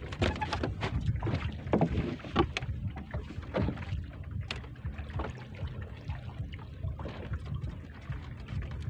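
Wind rumbling on the microphone over water on a small boat, with scattered small knocks and clicks.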